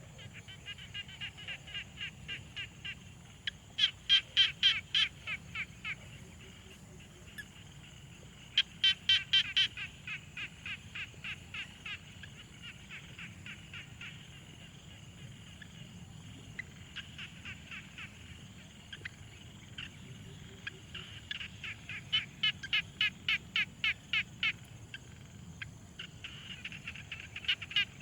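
A chorus of frogs calling in bouts: trains of rapid pulsed croaks, about five a second, each lasting a few seconds, several callers overlapping. The loudest bouts come about four and nine seconds in and again near the end.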